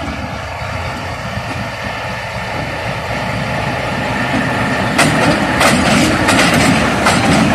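An RGE-24 diesel locomotive's engine running as it approaches and passes close by, growing steadily louder. From about five seconds in, a run of sharp clacks as its wheels cross the diamond crossing's rail joints.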